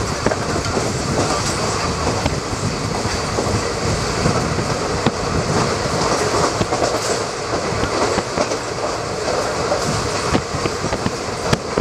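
Running noise of a train heard from a moving carriage: a steady rumble and rush with many fast wheel clicks over the rails. A line of open freight wagons passing close on the next track adds to the clatter.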